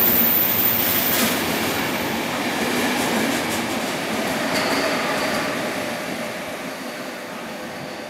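Kowloon–Canton Through Train (KTT) coaches passing a station platform at speed without stopping: a steady, loud running noise of wheels on rail that fades over the last couple of seconds as the end of the train moves away.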